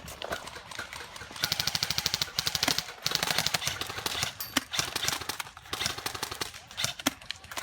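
Airsoft guns firing rapid full-auto bursts. A long, dense stretch of fire starts about a second and a half in and lasts about three seconds, and scattered single shots and clicks follow.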